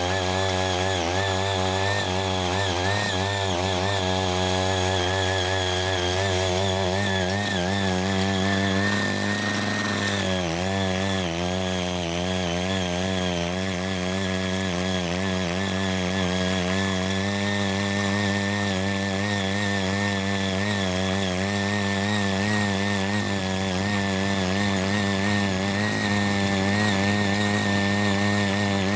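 Small petrol engine of a CY80 mini rotary tiller running hard under load as its 80 cm tines churn untilled, hard ground. The engine speed wavers constantly as the tines bite, with a brief dip about ten seconds in.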